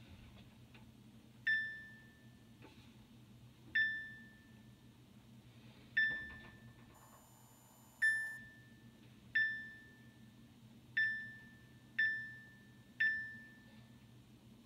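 LG gas range's electronic control panel beeping as its touch keys are pressed, to test the newly replaced display unit: eight single short beeps at uneven spacing, each a clear high tone that dies away quickly.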